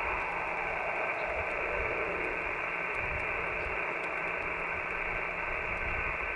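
Icom IC-7300 HF transceiver's speaker giving a steady hiss of band noise on single-sideband receive. No station is heard on the frequency while calls for contacts go unanswered.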